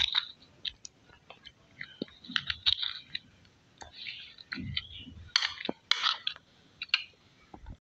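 A metal spoon clicking and scraping against a bowl as chicken pieces are stirred through a thick yogurt-and-spice marinade, in irregular bursts.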